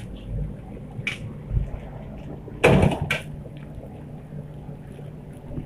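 Metal ladle scraping and knocking against a wok as fried rice is stir-fried, with two loud clanks about two and a half and three seconds in. A steady low hum runs underneath.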